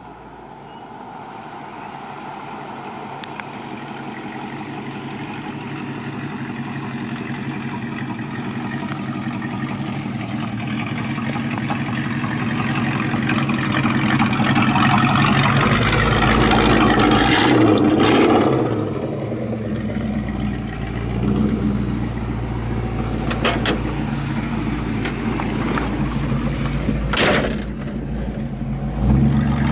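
1970 Dodge Coronet Super Bee's V8 engine and exhaust running as the car drives, growing steadily louder as it approaches over about fifteen seconds, then running on at road speed with a few brief sharp clicks and a rise in level near the end.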